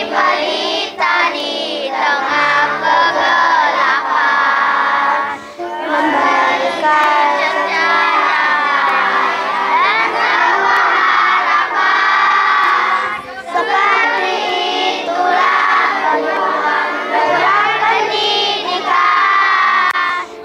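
A children's choir of young girls singing a song together in unison, with steady low instrumental accompaniment underneath. The singing pauses briefly a few times between phrases.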